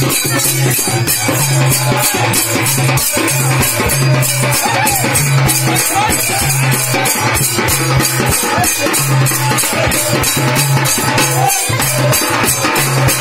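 Live folk drumming on a two-headed barrel drum and a stick-beaten frame-style drum, with a high rattling beat keeping fast, steady time over the low drum tones.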